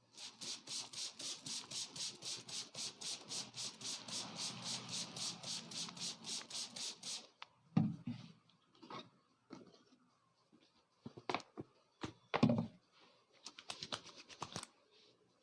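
Hands rapidly tapping and slapping in a head massage, an even run of about five strokes a second for about seven seconds. Then come scattered separate taps, two louder knocks and a short quick run of light taps near the end.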